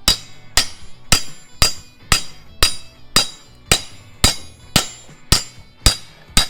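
Sharp metallic strikes in a steady, even rhythm, about two a second, each with a short bright ring.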